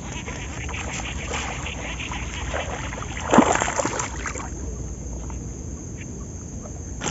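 Small boat on open lake water: steady low rumble of wind and water against the hull, with a sudden louder sound about three and a half seconds in.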